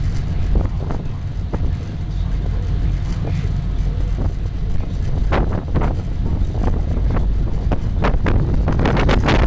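Wind buffeting the microphone on the open deck of a moving river cruise boat, over the steady low rumble of the boat's engine; the gusts come thicker from about halfway through.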